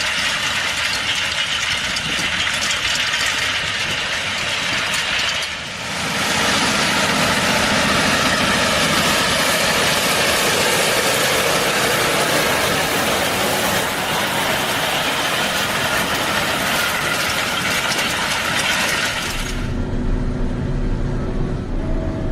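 Bakhsish 930 combine harvester running, its engine and machinery making a loud, steady noise with a strong hiss, dipping briefly about five and a half seconds in. Near the end the hiss cuts off abruptly, leaving a lower engine hum with steady tones.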